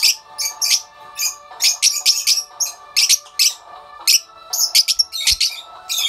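Fischer's lovebirds chirping: quick, sharp, high-pitched chirps coming in clusters, several a second.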